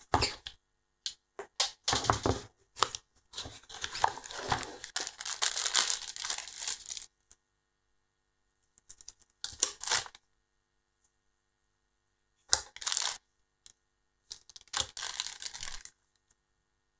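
Plastic packaging bags crinkling and rustling as parts are unpacked from a foam-lined cardboard box. A long stretch of crinkling in the first seven seconds, then three shorter bursts with silent gaps between.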